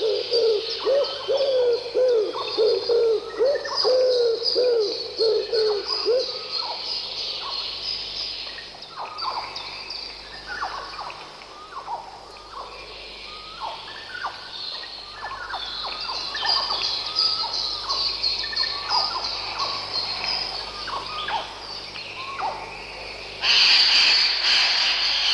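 Several birds singing together in a wet meadow, with a low hooting note repeated about twice a second for the first six seconds and many short chirps and whistles above it. Near the end a louder, denser high-pitched chatter comes in.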